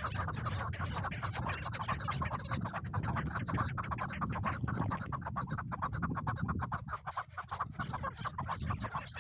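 Chukar partridges calling: a dense, rapid run of clucking notes that thins out briefly about seven seconds in.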